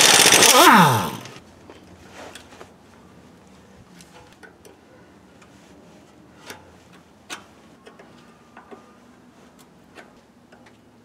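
Pneumatic impact wrench running in a short burst on the outer tie rod end's nut, its motor winding down in falling pitch as the trigger is let go, about a second long. After it, faint scattered clicks and taps of hand tools on metal.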